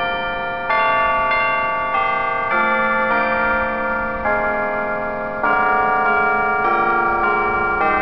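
Church tower bells chiming a slow tune at noon, a new note struck about every second and each ringing on under the next.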